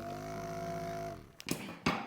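A small electric motor hums steadily, speeding up slightly at first, then winds down in pitch and stops a little past halfway. Two sharp knocks follow near the end.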